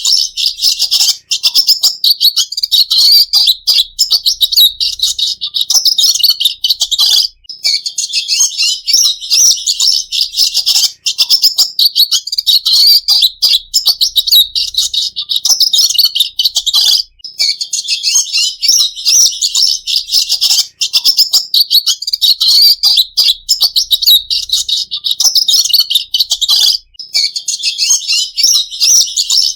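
Red siskin singing a long, fast twittering song of high chirps and trills, with only a few brief pauses.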